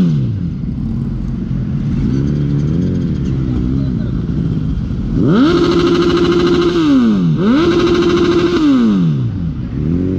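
Motorcycle engine being revved on the spot: a few small throttle blips, then twice revved up sharply and held at a steady high pitch for about a second and a half before dropping back, about five and eight seconds in.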